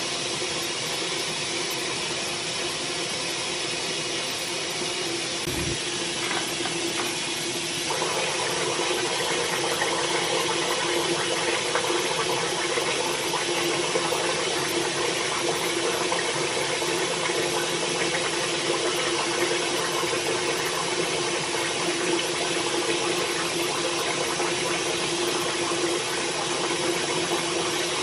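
Bathroom sink tap running steadily, getting louder about eight seconds in, with a brief low thump shortly before.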